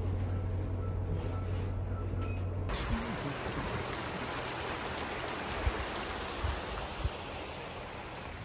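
A steady low hum, then from about three seconds in the constant rush of river water, with a few dull low thumps.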